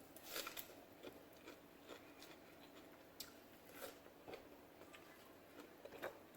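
Faint close-up chewing and biting on food, with soft irregular crunches and mouth clicks.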